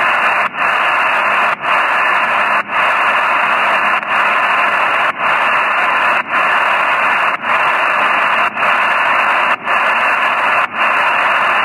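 HF shortwave receiver tuned to 8122 kHz with an open, empty channel: steady static hiss in a narrow voice-bandwidth passband, with a brief dropout about once a second.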